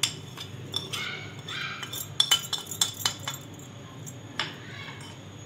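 Steel spoon clinking against a ceramic plate while stirring dry spices into mashed potatoes, with a quick run of sharp clinks a couple of seconds in and one more near the end.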